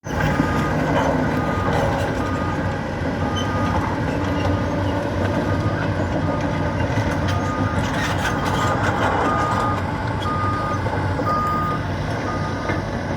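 Excavator's diesel engine running, with its warning alarm beeping steadily about once a second. A scatter of clicks and knocks around the middle.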